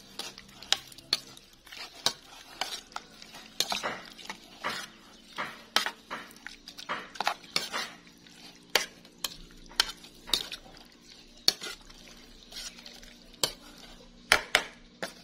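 Metal spoon stirring and tossing cooked pork in a metal saucepan, with irregular clinks and scrapes of the spoon against the pot about once or twice a second, as the seasoning is mixed into the meat for larb.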